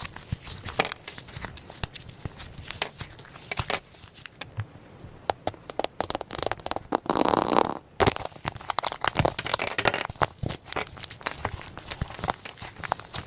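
Floam slime, slime packed with small foam beads, being squeezed and kneaded by hand, giving a dense run of irregular crackles and pops. About seven seconds in there is one louder squish lasting about a second.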